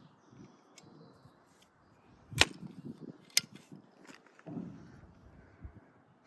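Two sharp metallic clicks about a second apart, then a softer knock, from handling the action of a homemade .22 LR rifle.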